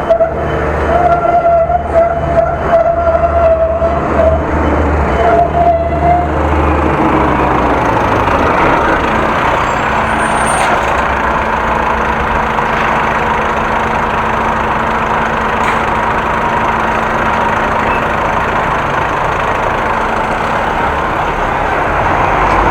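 Road vehicle noise: a motor vehicle's engine close by with a wavering tone and low rumble for the first six seconds or so, then a steady rush of traffic noise with a faint hum.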